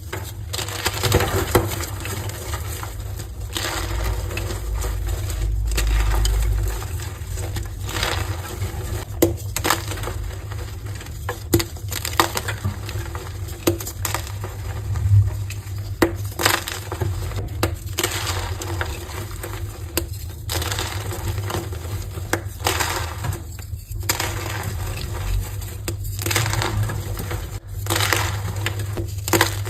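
Heart-shaped blocks of dyed gym chalk being crushed and broken apart: continuous crunching and crumbling, with many sharp snaps throughout.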